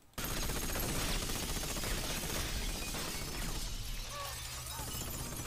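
Action-film sound effects playing back, starting abruptly: a dense, continuous crash of shattering and falling glass, with a low hum coming in about four seconds in.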